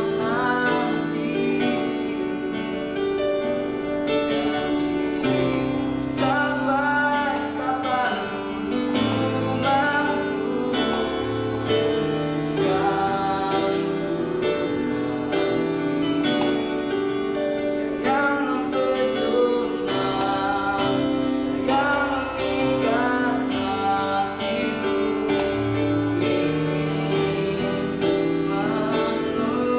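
Yamaha PSR-S710 arranger keyboard playing a slow tune: long held chords and bass notes under a wavering lead melody.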